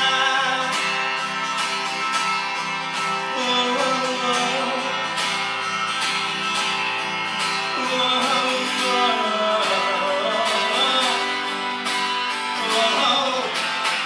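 A man singing a ballad to his own strummed acoustic guitar, played live into a microphone.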